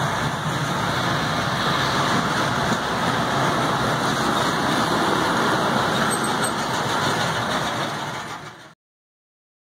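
Moving passenger train's wheels running over the track, a steady dense rumble and rail noise heard from aboard the Khyber Mail Express coach; it fades out about eight and a half seconds in.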